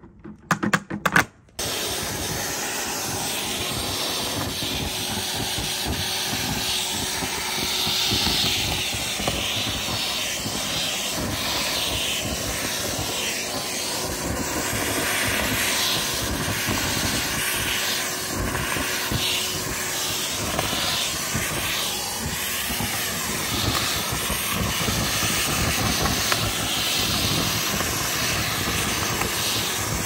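A few sharp knocks, then from about a second and a half in a vacuum cleaner running steadily with a rushing hiss. The hiss rises and falls as its crevice tool sucks up loose fluff and dust from a rug.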